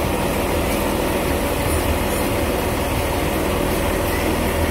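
Semi truck's diesel engine running steadily as the truck drives through deep floodwater, with the continuous rush and wash of water churned up around the wheels.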